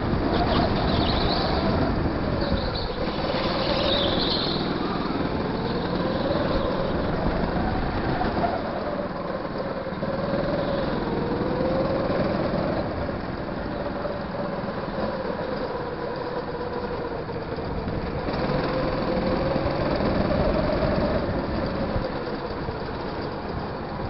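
Go-kart motor running at speed around a track, its pitch rising and falling several times as the kart speeds up and slows for corners, over a steady rumble.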